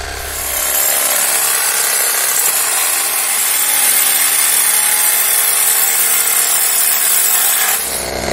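PROSTORMER 21V cordless reciprocating saw running under load, its blade sawing through wood in a loud, steady noise. The sound changes slightly about a second in and eases off just before the end.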